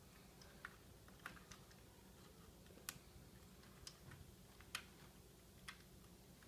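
Small plastic LEGO pieces being handled, a handful of faint, separate clicks about a second apart against near silence.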